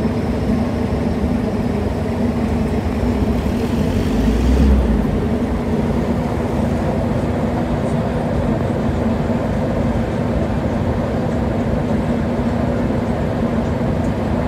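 Steady mechanical drone with a constant low hum, like a running engine, holding level throughout. A brief louder low rumble comes about four seconds in.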